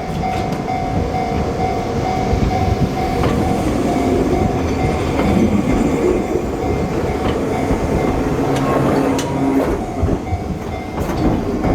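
Enoshima Electric Railway (Enoden) train of two coupled two-car sets, 300 series and 1000 series, running through the level crossing. Its wheels rumble and click over the rail joints, with a steady tone behind them.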